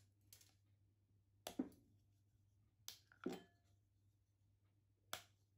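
A white chocolate bar snapped into pieces by hand over a glass bowl: sharp snaps with pieces clinking on the glass, three times about every second and a half, over a faint steady hum.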